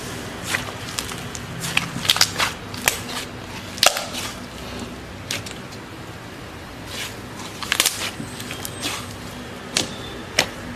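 Slime being pressed and squeezed by hand, giving irregular sharp clicks and pops with softer crackles between them.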